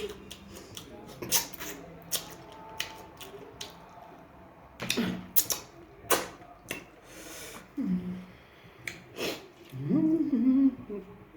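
Close-up eating sounds from a mukbang: chewing and mouth clicks in irregular sharp snaps, with a few short hummed 'mm' sounds, the longest near the end.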